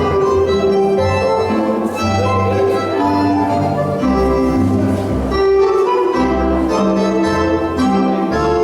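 Dance music played over the hall's sound system: a sustained keyboard-like melody over bass notes that change about once a second.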